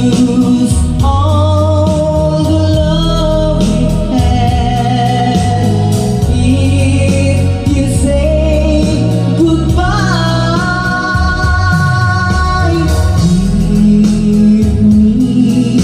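Song with a held, gliding sung melody over a strong, full bass line.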